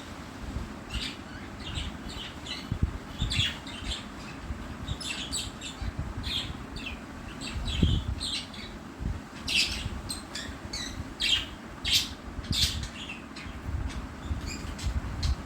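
Pet budgerigars chirping in short, scattered high calls, over a low rumble with occasional dull bumps.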